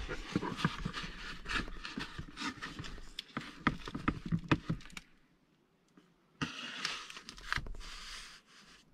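Items being handled: a quick run of light knocks and scrapes, then after a brief gap a stretch of rustling.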